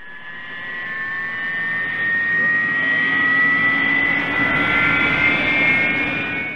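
Intro sound effect of a jet engine spooling up: a turbine-like whine slowly rising in pitch over a rushing noise. It swells over the first few seconds, holds, then fades away near the end.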